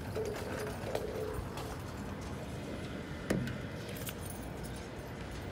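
A bunch of keys jangling, with a single sharp click about three seconds in.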